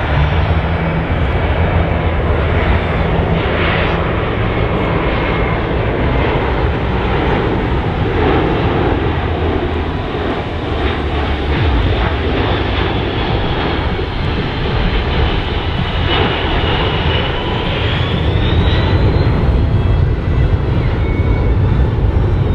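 The four turbofan engines of a USAF C-17 Globemaster III running in a low pass, a steady jet noise over a deep rumble. About three-quarters of the way through a whine bends up in pitch and the sound grows a little louder as the engines throttle up for the show exit.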